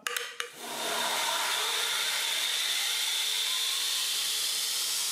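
Ameribrade Fastback 2x72 belt grinder, its 2 hp 220-volt motor turned down to 75% on the VFD, coming up to speed after a few clicks about half a second in, then running steadily with a hiss and a faint high whine, with no steel on the belt.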